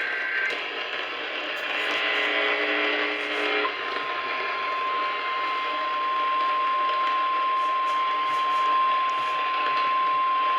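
Weather-radio alert heard through radio hiss: faint data chirps of the digital alert header, then about four seconds in a steady single-note alarm tone starts and holds. This is the NOAA Weather Radio warning alarm tone that announces a warning about to be read.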